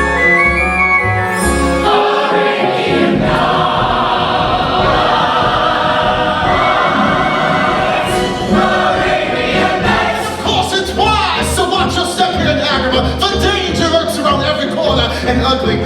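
Music with a choir singing over a steady pulsing bass.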